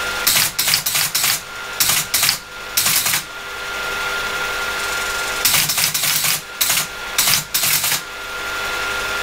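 ASR33 Teletype printing characters received from a PC terminal: bursts of rapid mechanical clacking in the first three seconds and again from about five and a half to eight seconds in, over the steady hum of its running motor.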